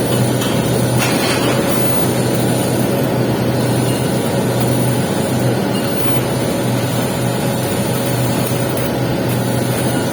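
Welding arc burning steadily with an even hiss and crackle over a constant low machine hum, during a capping pass on pipe.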